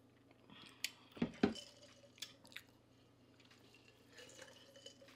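Faint tabletop breakfast sounds: syrup pouring from a plastic squeeze bottle onto pancakes, with small wet dripping sounds and a few light clicks and taps of cutlery and dishes, the loudest just over a second in.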